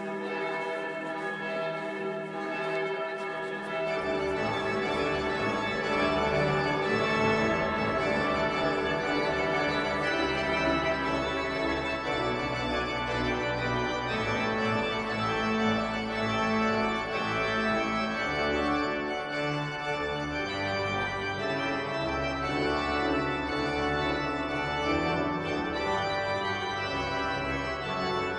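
Pipe organ playing slow, sustained chords. Deep bass notes come in about four seconds in and the music grows fuller. Church bells ringing at the start fade under the organ.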